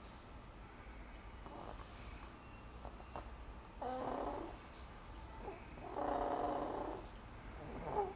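Snoring in slow breaths, with two louder pitched snores, one about four seconds in and one about six seconds in, each lasting under a second.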